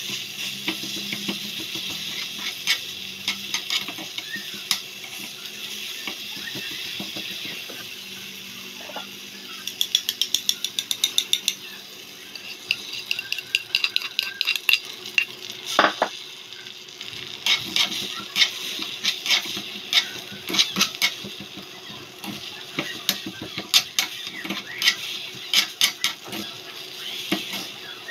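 A small spatula scraping and tapping a miniature metal wok while tomatoes and onions sizzle in it over a tiny gas burner. About ten seconds in comes a quick, even run of clicks, followed by a loud knock on the metal. After that come many irregular taps and scrapes as beaten egg is stirred in the pan.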